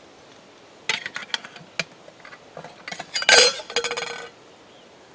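Metal cookware clinking and clattering: a few light clinks about a second in, then a louder clatter around three seconds in that rings briefly.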